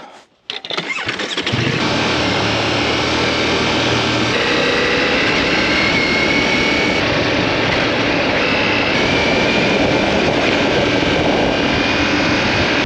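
Motorcycle ridden at speed off-road: a dense rush of wind over the camera microphone builds up over the first second or so and then holds steady, with the engine's note faintly rising and falling beneath it.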